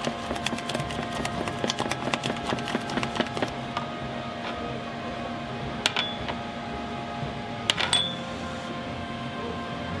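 Wooden spatula stirring thick cheese sauce in a stainless-steel saucepan: a quick run of small clicks and scrapes against the pan for the first few seconds, then two sharp ringing clinks about six and eight seconds in, over a steady hum.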